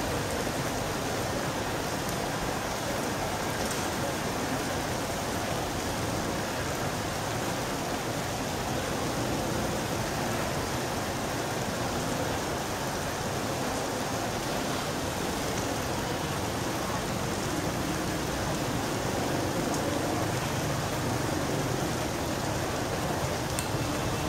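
Steady rain falling on the street and rooftops, an even hiss, with a low rumble building near the end.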